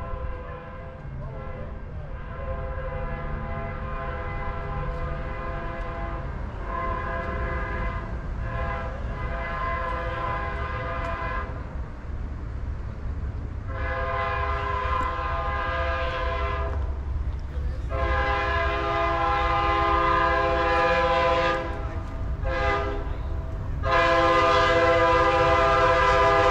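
An approaching Amtrak GE P42 diesel locomotive sounding its multi-chime air horn in long blasts, with a short one just before the last long blast, the pattern sounded for a grade crossing. The horn and a low rumble grow louder as the train nears.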